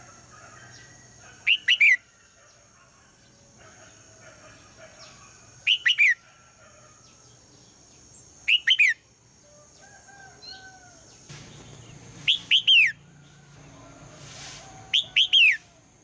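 Red-whiskered bulbul calling: five short, loud phrases of two or three quick falling whistled notes, spaced about three to four seconds apart. This is the female's morning call, which is meant to draw a male into song.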